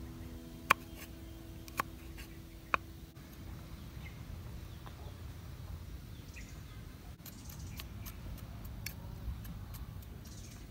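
Cleaver knocking on a round wooden chopping block while slicing red chilies and then chopping onion and garlic. There are three sharp knocks in the first three seconds, then lighter, quicker taps in the second half.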